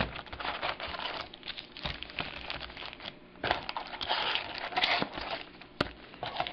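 Packaging crinkling and rustling as a box of sealed trading-card packs is opened and the foil packs are handled, with a few sharp knocks.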